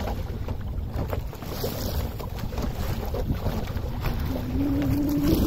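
Wind buffeting the microphone and water washing past the hull of a small sailboat under way through choppy water. A steady hum comes in about four seconds in.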